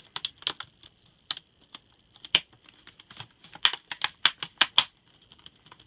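Plastic screen bezel of an ASUS X55C laptop being pressed back on, its clips snapping into place in a run of sharp, irregular clicks, the loudest cluster coming about four seconds in.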